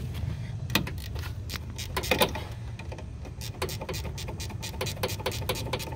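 Hand tool working a bolt loose on a car's ABS brake unit: a run of short, irregular metallic clicks, a few a second.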